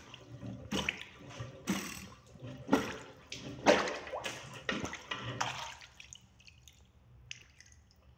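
Rubber cup plunger pumped over a blocked wash basin drain full of standing water, about one stroke a second, each stroke a splash and suck of water. The strokes stop after about five and a half seconds, leaving only faint water sounds.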